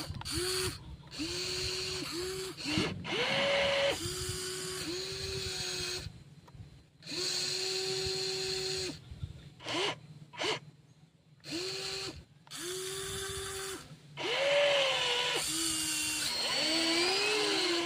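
Small electric motors and gearboxes of a WL 16800 radio-controlled model excavator whirring in a string of short bursts that start and stop abruptly. The whine rises in pitch on a few bursts, about three seconds in and again near the end.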